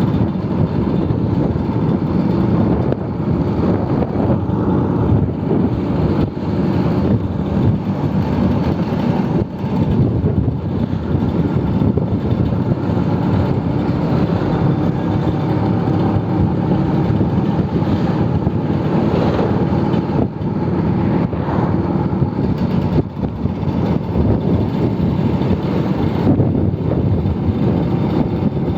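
Old Vespa scooter's engine running steadily under way on the road.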